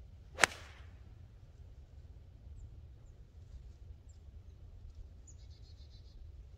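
A golf club striking the ball off the tee: one sharp crack about half a second in. A few faint bird chirps follow.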